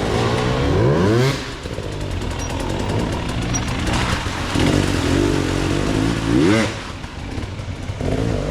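Enduro dirt bike engines running under load, with the pitch rising sharply as the throttle is opened, once about a second in and again about six and a half seconds in.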